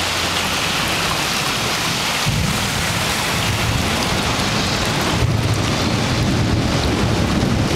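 Steady rushing hiss of fast-flowing floodwater, with a low rumble joining about two seconds in.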